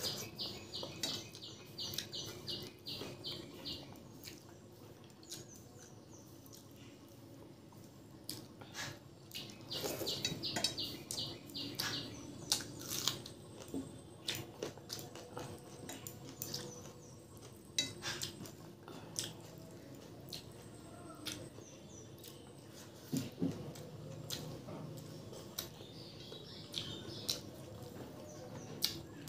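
Eating rice and dal by hand: wet chewing and lip-smacking in quick runs of small clicks, and fingers mixing rice and dal against a steel plate.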